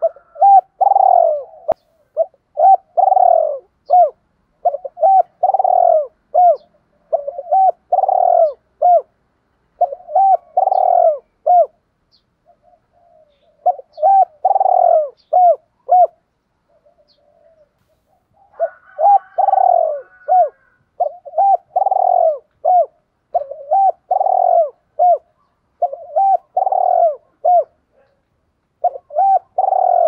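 Spotted dove cooing: loud, repeated phrases of several short, low coos each, one phrase after another with brief pauses about twelve and sixteen seconds in. This is the calling song that decoy doves are kept for, to lure wild doves.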